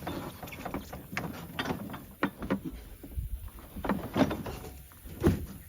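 Irregular knocks and clunks, several a second at times, the loudest about four and five seconds in, over a faint low rumble.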